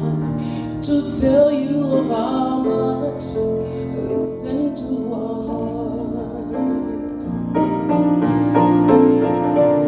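Gospel-style song with piano and keyboard accompaniment, a sung voice faintly in the mix.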